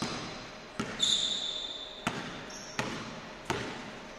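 A basketball being dribbled on a hardwood gym floor, about one bounce a second, each bounce echoing through the hall. Sneakers squeak briefly on the floor about a second in.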